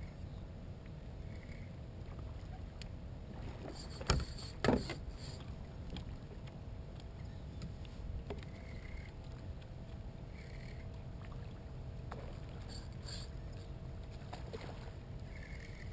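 Kayak and fishing tackle while a redfish is being played on a bent rod: a steady low rumble, with two sharp knocks about four seconds in and a few faint ticks scattered through.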